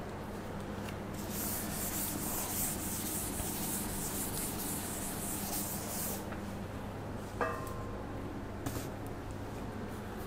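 Chalkboard being wiped with a duster: a steady rubbing hiss for about five seconds. Then a brief squeak and a couple of light taps as chalk writing begins.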